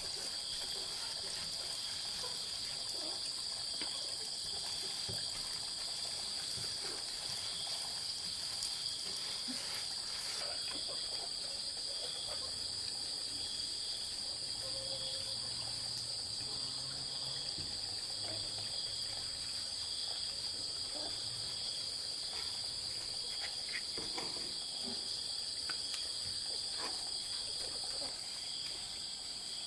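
Steady insect chorus: several continuous high-pitched trills at different pitches, the lowest one pulsing evenly, with faint scattered taps.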